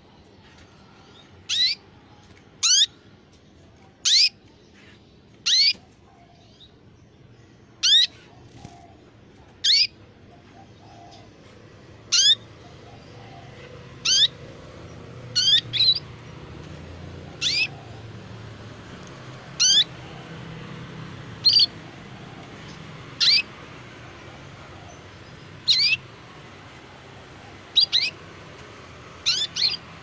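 White canary calling with short, high-pitched sweeping chirps, one every second or two, with a quick run of several calls near the end.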